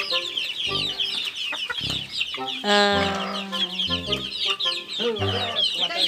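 Chickens clucking in a farmyard, over dense high-pitched chirping that runs throughout. One louder, drawn-out call comes about three seconds in.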